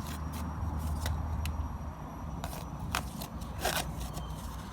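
A child's plastic toy saw scraping on a piece of wood in short, irregular strokes, over a steady low hum.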